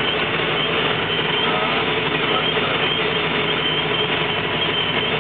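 Steady engine drone and road noise inside a heavy truck's cab cruising at highway speed.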